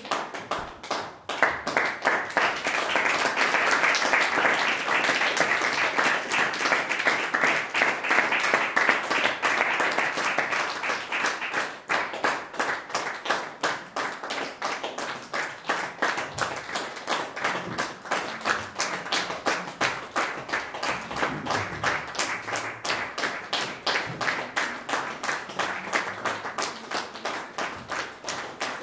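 Audience applauding, swelling about two seconds in, then after about twelve seconds settling into steady rhythmic clapping.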